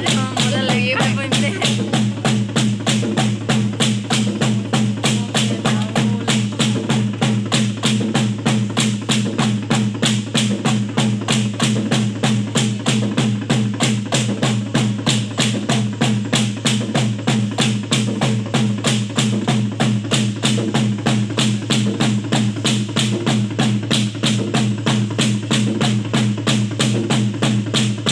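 Folk dance music with a steady beat of sharp wooden knocks, about three a second, from bamboo poles clapped together for a bamboo dance, over a steady low drone and a drum.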